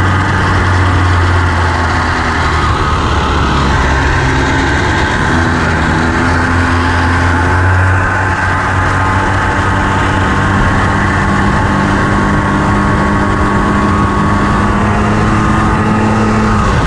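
Honda FL350 Odyssey buggy's single-cylinder engine running under way, its note shifting with the throttle. It climbs steadily over the last several seconds, then falls off near the end.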